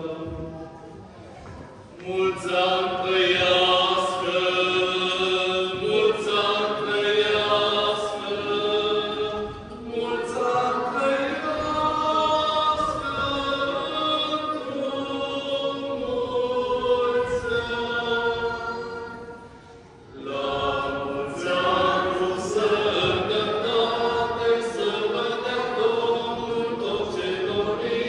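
Choir singing a liturgical chant with long held notes, in phrases broken by short pauses about 2, 10 and 20 seconds in.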